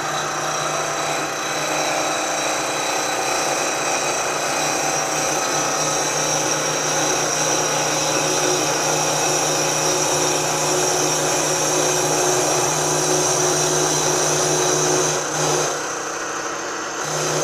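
Vertical milling machine cutting a cast iron casting: a steady spindle hum under the noise of the cutter on the iron. The sound drops about fifteen seconds in and picks up again a second or so later.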